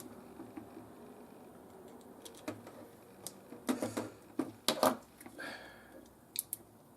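A few sharp clicks and taps of small hard plastic parts as a multimeter is handled, bunched together about halfway through, with a short scrape just after.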